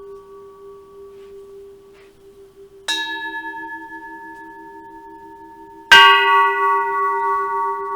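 Small Japanese Buddhist temple bell struck twice, about three seconds apart, each strike ringing on with a steady, slightly wavering hum over the fading ring of an earlier strike. The second strike is much louder, struck too hard.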